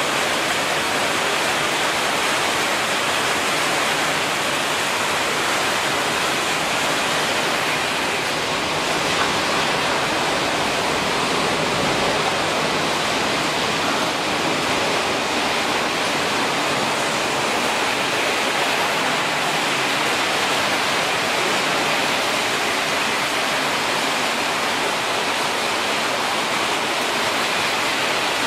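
PET bottle washing line running: a steady, even rushing noise of the plant's machinery at work.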